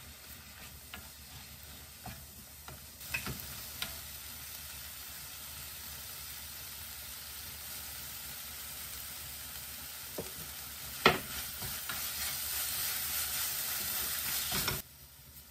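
Fish cake strips and sliced onion sizzle in chili-pepper sauce in a wok while a wooden spoon stirs and scrapes through them. There are a few light knocks early on and one sharp knock about eleven seconds in. The sizzle grows louder in the second half and cuts off suddenly near the end.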